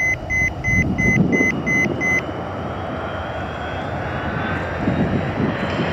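A quick run of about eight high electronic beeps, roughly three a second, that stops about two seconds in: a cockpit alert sounding just after the crew's "disconnecting" callout on short final. Beneath it is the steady rumble of the Antonov An-225's six turbofan engines at approach power, with a faint rising whine later on.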